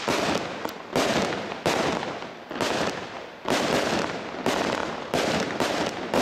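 A 72-shot fireworks battery (cake) firing in quick succession: about eight sharp shots, roughly one a second and some closer together, each followed by the crackle of the bursting shells.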